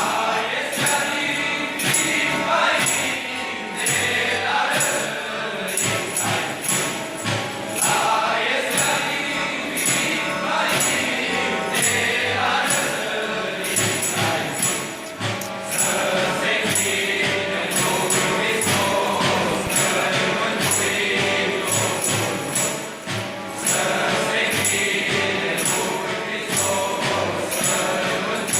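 A group of Romanian carolers singing a colindă together, with jingle bells shaken in a steady beat about twice a second.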